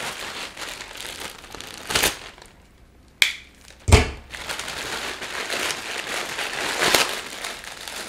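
Plastic courier mailer crinkling and rustling as it is handled and opened, broken by a few sharp knocks; the loudest, a thump, comes about four seconds in.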